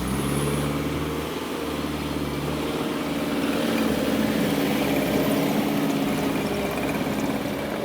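Diesel engine of a JCB 1CXT compact tracked loader running, its speed rising about three seconds in and holding higher as the machine works.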